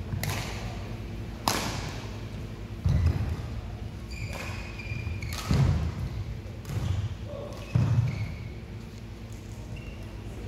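Badminton rally in a large hall: racket strikes on the shuttlecock about every second or so, with heavy footfalls and shoe squeaks on the court mat.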